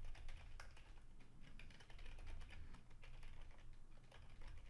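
Typing on a computer keyboard: a quick, irregular run of faint key clicks.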